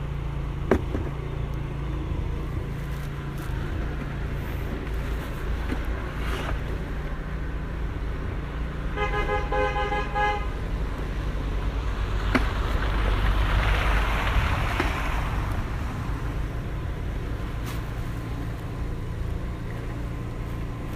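A car horn sounds once, a steady blare lasting about a second and a half, over a constant low rumble. A few seconds later a rush of noise swells and fades.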